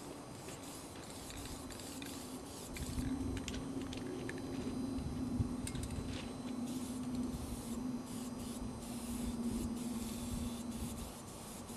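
Aerosol spray-paint cans hissing in many short, irregular bursts, over a steady low hum and rumble.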